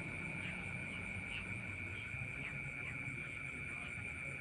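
Night insects trilling steadily on one high pitch, with short higher chirps scattered over it.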